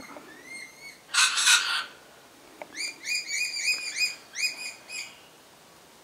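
Rainbow lorikeet calling: one loud harsh screech about a second in, between runs of short, quickly repeated chirps.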